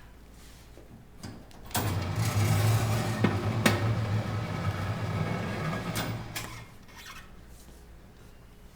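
Tire changer's turntable motor running with a steady hum for about five seconds, turning the wheel to strip the second tire bead off the rim, with a sharp click partway through. The hum starts about two seconds in and stops a couple of seconds before the end.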